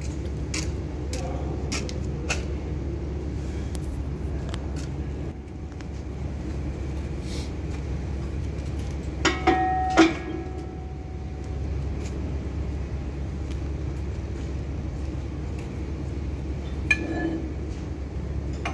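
Two sharp metal-on-metal clanks that ring briefly, about nine and ten seconds in, with a smaller ringing clank near the end: steel parts or tools striking the brake gear under the locomotive bogie. Under them run a steady low hum and occasional light clicks.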